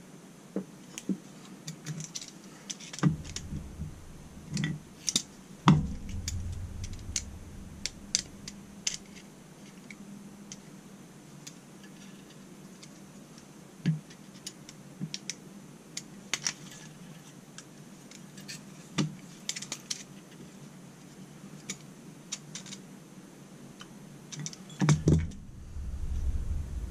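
Metal parts of a Holley 4150 carburettor baseplate being handled and fitted together by hand on a workbench: irregular light clicks and ticks, with a few louder knocks and dull thumps scattered through.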